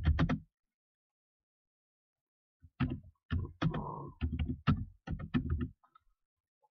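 Computer keyboard typing: a quick run of key clicks starting a little under three seconds in, after about two seconds of complete silence.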